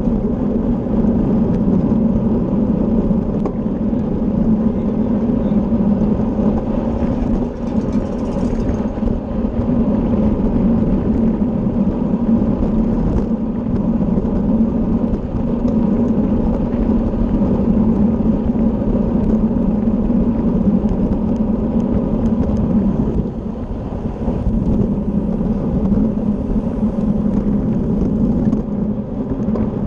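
Steady rush of wind over the microphone of a camera riding on a racing bicycle at speed, a loud low buffeting that dips briefly a couple of times.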